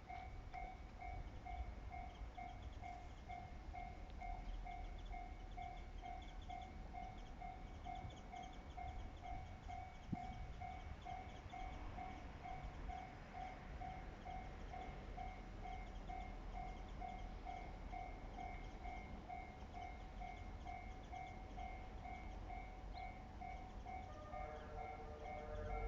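Japanese railway level-crossing warning bell ringing in a steady, evenly repeating ding-ding rhythm, the signal that a train is approaching; other pitched tones join near the end.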